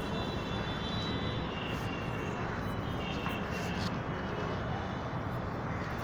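Steady low rumble of strong wind buffeting the microphone, with a few faint, short, high-pitched whistle-like tones in the first half.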